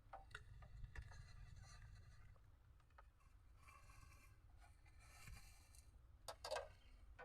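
Near silence: a faint low rumble with a few small clicks and scrapes, and one slightly louder scrape or rustle near the end.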